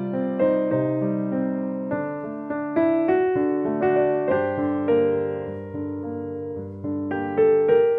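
Slow background piano music: chords and a simple melody, each note struck and left to fade.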